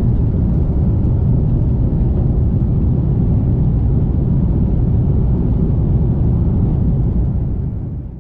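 Jet airliner in flight heard inside the cabin: a steady, loud rumble of engines and airflow. It fades out near the end.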